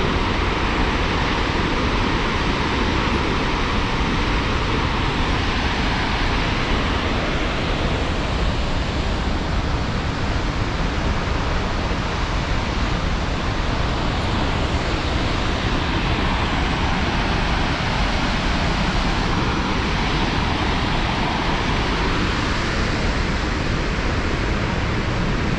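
A loud, steady rushing noise with no separate events, swelling slightly now and then.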